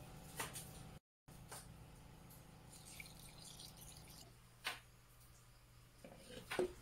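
Clear liquid poured from a jug over fish in a clay pot, a faint trickle, followed by a few sharp clunks near the end as a clay lid is set on the pot.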